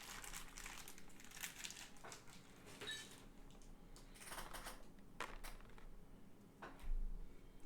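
Intermittent rustling and crinkling from handled packaging, with a brief faint beep about three seconds in and a louder thump near the end.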